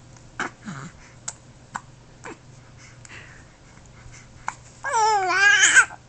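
Hiccups: several short, sharp hiccups in the first two and a half seconds, then a loud, high whining cry that rises and falls near the end.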